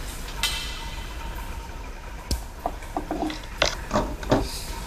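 Small clicks and light taps of needle-nose pliers and a rubber fuel line being worked into the plastic fuel tank opening of a blower, clustered in the second half.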